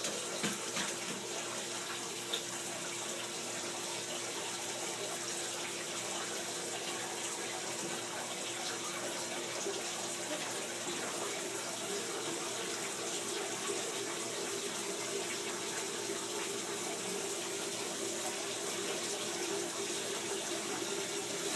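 Bathtub tap running steadily into the tub, an even hiss of water with a faint hum beneath it.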